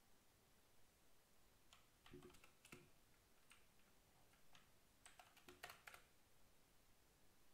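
Faint computer keyboard typing: a handful of keystrokes in two short runs, about two seconds in and again about five seconds in.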